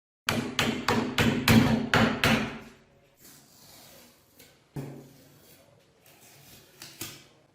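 A quick series of about seven sharp strikes with a short ring after each, over roughly two seconds, followed a couple of seconds later by two single knocks.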